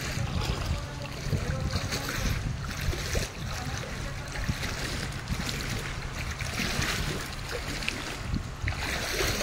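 Floodwater covering a street, a steady rush and slosh of water, with a low rumble of wind on the microphone.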